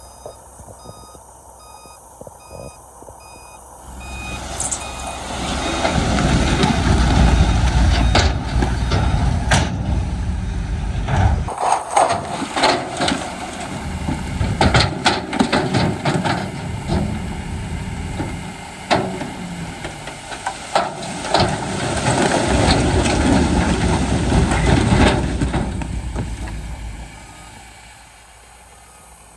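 A reversing alarm beeps at an even pace for the first few seconds. Then a heavy diesel machine's engine comes up loud and runs hard, with repeated knocks and clatter, until it dies back down near the end.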